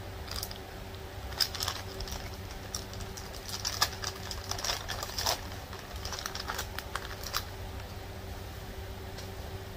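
Light, scattered crinkles, taps and clicks from a plastic bag of shredded cheese being handled and cheese sprinkled over a spaghetti layer in a baking pan. The handling sounds fall mostly in the first seven seconds, over a steady low hum.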